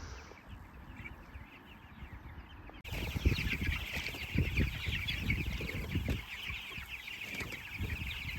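A flock of young broiler chicks peeping and cheeping together, a dense overlapping chatter that comes in loudly about three seconds in, with low thumps underneath.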